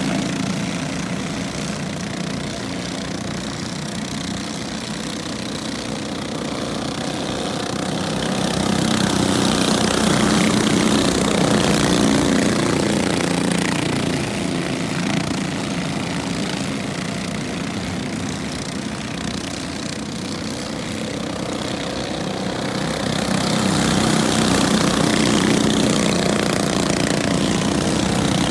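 Several junior sprint cars' small engines running together as the pack laps a dirt oval. It is a steady buzz that swells twice, as the cars come round closer.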